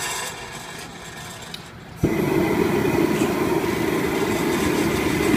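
A couple of faint clicks, then about two seconds in the gas burner of a chile roaster lights with a sudden, steady roar beneath its mesh drum of green chiles.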